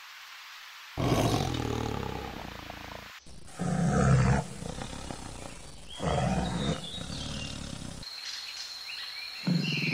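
Big cats roaring and growling, from a leopard and then lions: one long call from about a second in, then a run of calls with louder bursts, a short lull, and another call starting near the end.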